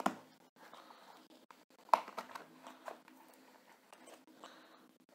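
Hands handling a taped cardboard parcel on a table: faint scraping and rubbing on the box, with a knock at the start and a louder one about two seconds in.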